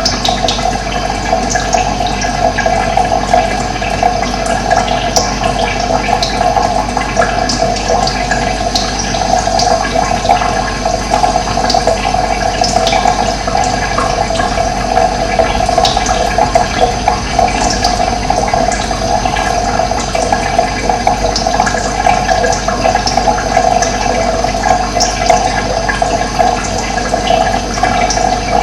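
Running water making a steady rushing, splashing sound, with many small high splashes on top.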